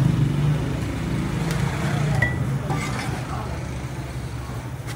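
Light metallic clinks and knocks of a steel clutch disc and pressure plate being handled and set down on a concrete floor, over a steady low hum.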